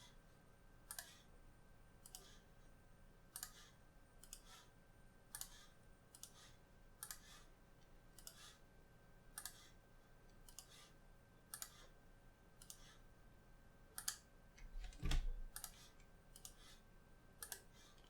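Faint computer mouse clicks, roughly one a second, with a louder soft low thump and brief rustle about 15 seconds in.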